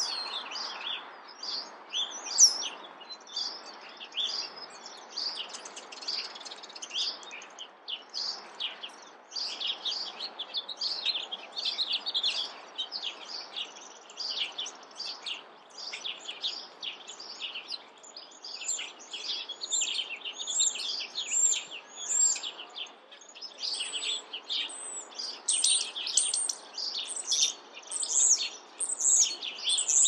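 A chorus of small songbirds chirping: many short, high notes and quick trills overlapping without pause, busier in the second half, over a steady background hiss.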